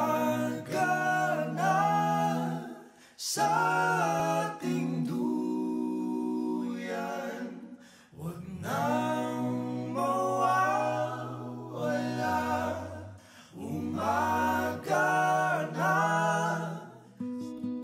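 A cappella vocal music: several voices singing together in harmony, in long held phrases with short breaks between them.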